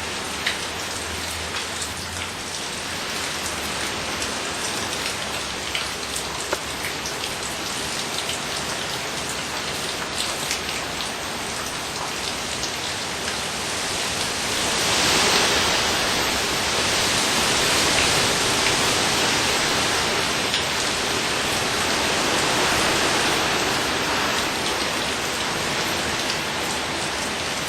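Heavy rain from Hurricane Dolly pouring and pattering on surfaces, a dense steady hiss that swells louder about halfway through.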